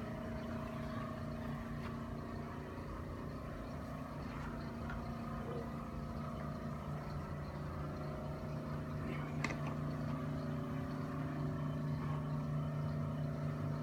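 Steady low machine hum, holding one pitch, with a single faint click about nine and a half seconds in.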